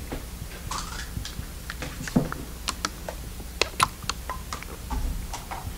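Scattered small clicks and crackles of a plastic water bottle being handled, irregular and light, thickest in the middle of the pause.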